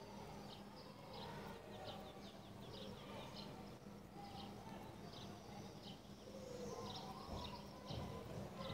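European goldfinch singing: a faint, fast run of short, high twittering notes.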